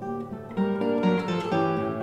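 Solo classical guitar played fingerstyle: a run of plucked notes and chords, several a second, taking over from a fading chord.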